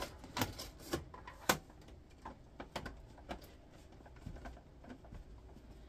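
Long screwdriver working screws out of deep holes in a plastic exercise-bike housing: scattered light clicks and taps, three sharper ones in the first second and a half, then fainter ones.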